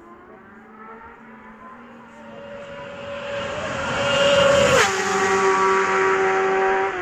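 Racing motorcycle at full speed on the Isle of Man TT course: its engine grows louder as it approaches, then passes close at about five seconds in with a sharp drop in pitch, and holds a steady lower note as it pulls away.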